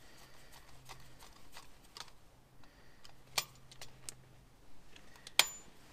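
Socket ratchet clicking in short strokes as a nut is run onto the stud of a battery isolator switch: a run of light, irregular ticks, with two sharper clicks in the second half.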